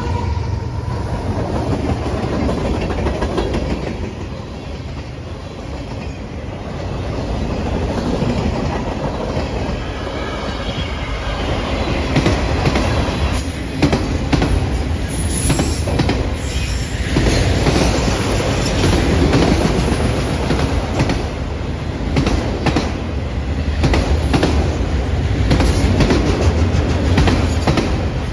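Canadian Pacific freight train passing close by. The deep rumble of its diesel locomotives gives way to autorack cars rolling past, and from about halfway through the wheels clatter rapidly over the rail joints, with a brief high wheel squeal.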